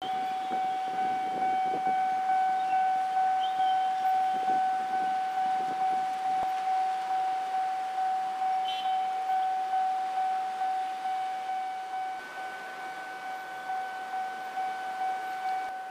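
Railway level crossing warning bell ringing, one steady tone repeating about twice a second. It signals that a train is approaching while the barriers are down. It gets quieter about twelve seconds in.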